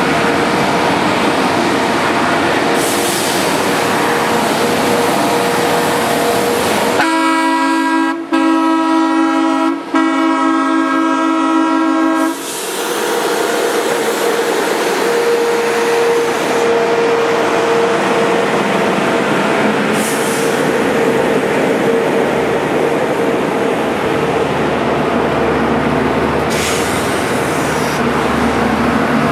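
A railroad chord horn sounds one long blast of about five seconds, with two brief breaks, over the steady engine noise of track maintenance machines moving along the line. Near the end a deeper engine rumble grows louder.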